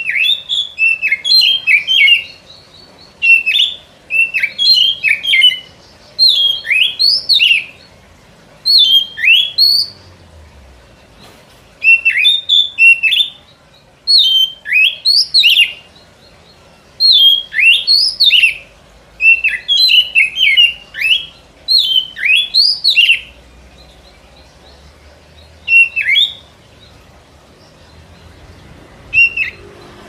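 Oriental magpie-robin (kacer) singing: phrases of clear whistled notes sliding up and down, repeated with short pauses between them. It is a lure-song recording, played to attract kacer.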